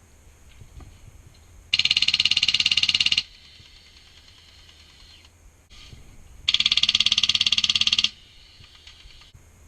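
HPA-powered G&G airsoft light machine gun (Wolverine Inferno engine) firing two full-auto bursts of rapid, evenly spaced shots, each about a second and a half long, the first near two seconds in and the second past six and a half seconds.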